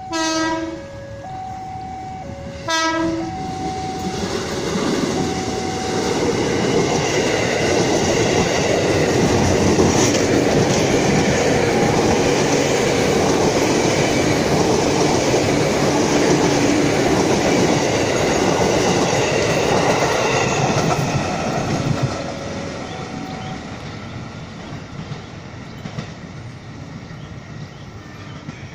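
Former JR 205-series electric commuter train sounding two short horn blasts about two and a half seconds apart as it approaches, then passing close by with a steady, loud rush of wheels on rail. The rush fades away after about twenty seconds.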